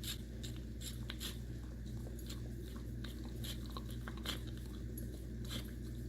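A husky eating biscuits in sausage gravy: irregular chewing and biting clicks.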